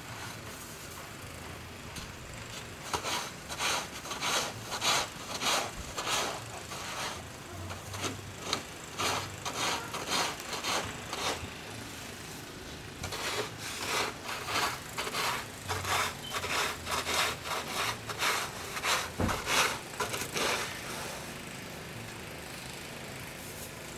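Footsteps crunching in snow, about two steps a second, in two runs with a short pause between them, then stopping.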